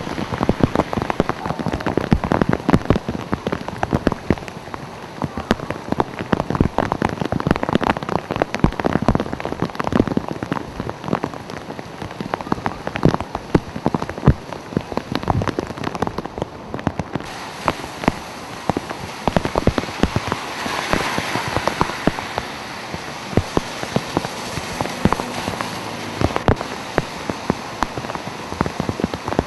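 Rain falling steadily, a dense patter of individual drops hitting close by over a constant wash. From about two-thirds of the way through, a smoother hiss joins the patter.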